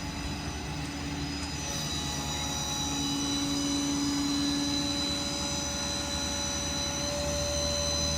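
Ford 6.7 Power Stroke diesel running steadily while it drives the PTO hydraulic pump of a Stellar 5521 crane as the crane is worked. A high hydraulic whine comes in about one and a half seconds in, over a steady engine hum and a mid-pitched drone.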